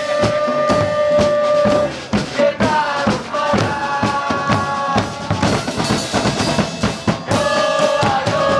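Music with a loud drum beat under long held melody notes that slide from one pitch to the next.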